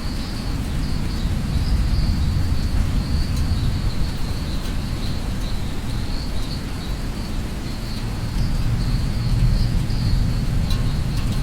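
Steady rain with a continuous low rumble, and a high, even chirring of insects running through it.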